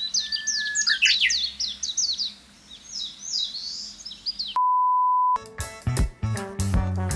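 Songbirds chirping in quick, repeated falling calls with one held whistle near the start. At about four and a half seconds they stop dead for a single steady beep lasting under a second. Bouncy background music with a beat then starts.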